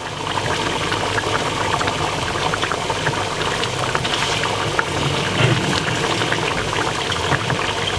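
Beef curry boiling in a non-stick pot: a steady bubbling hiss with many small pops.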